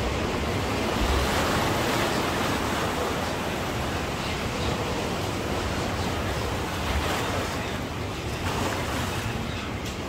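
Sea surf: waves breaking and washing up the beach in a steady, swelling rush, with wind buffeting the microphone now and then.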